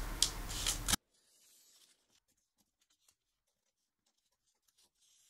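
Scissors snipping through pattern paper, a few short cuts for about a second; then the sound drops out to near silence.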